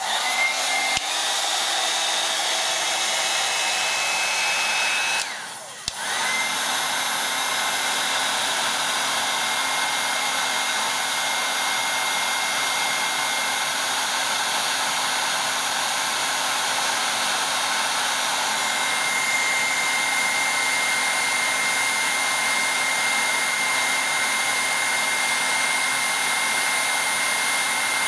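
Electric heat gun running steadily, blowing hot air onto a turned elm egg to heat its finish. Its sound dips briefly about five seconds in, then carries on steadily.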